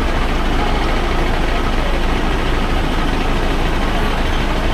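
A vehicle engine running steadily, a constant low rumble under even traffic noise.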